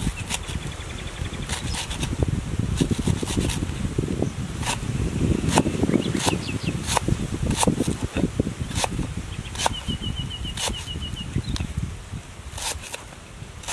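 Large knife slicing lemongrass stalks on a wooden chopping board: sharp, irregular chops about once or twice a second, with soft crunching and rustling between strokes. A short high trill of rapid notes sounds briefly near the start and again about ten seconds in.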